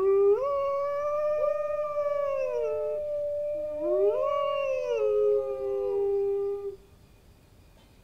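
Grey wolves howling: two long, overlapping howls, one held fairly level while the other rises and falls, dipping and climbing again near the middle. The howling stops about seven seconds in.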